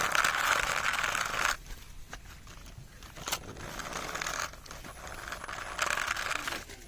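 Three bursts of crackly rustling or scraping noise, the first the longest and loudest.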